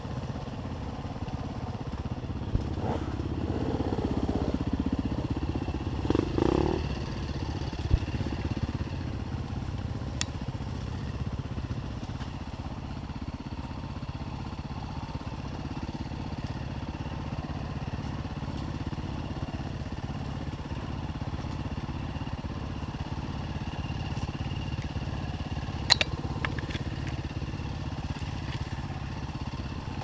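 Enduro dirt bike engine running at low, steady throttle, revving up a few seconds in, with occasional sharp knocks and clatter from the bike; the sharpest knock comes near the end.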